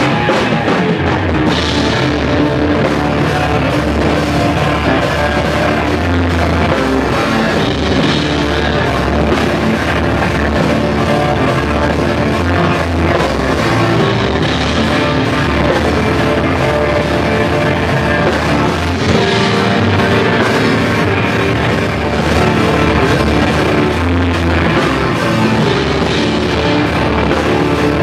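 Instrumental psych-rock band playing live and loud without a break: electric guitar, keyboards, drum kit and electric fretless bass.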